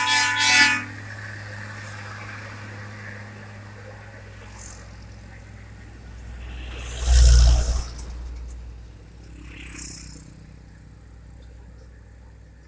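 A heavy truck's horn sounds in short blasts and stops within the first second. The truck's diesel engine then hums low and steady as it drives away, slowly fading. A loud low rush swells and dies about seven seconds in.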